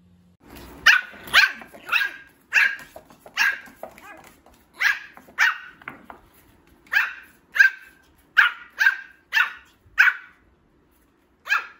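Young Pomeranian puppy giving about fifteen short, high-pitched barks, roughly two a second, with a pause near the end: the small, new barks of a puppy that has only just started barking.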